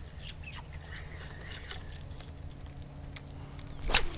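Quiet outdoor ambience with a low rumble, faint bird chirps and a few faint clicks, then one brief, louder knock or rustle near the end.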